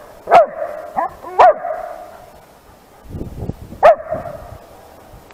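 Young German Shepherd giving short, sharp alert barks, four in all: two close together in the first second and a half, a softer one between them, and a last loud one after a gap of about two seconds.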